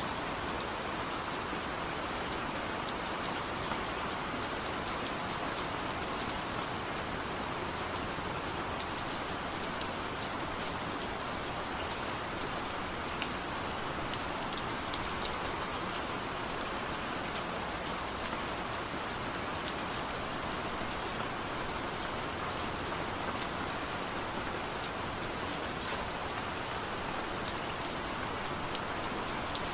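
Steady rain falling, an even hiss with many small drop ticks and no thunder.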